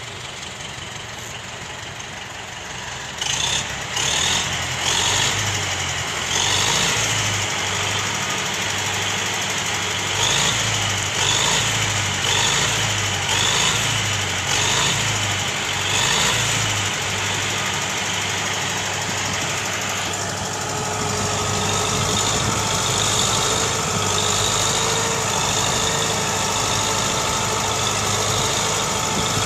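Universal 650 tractor's four-cylinder diesel engine working under load as it drags long logs. It grows louder about three seconds in, surges and eases every second or so for a while, then runs steadily.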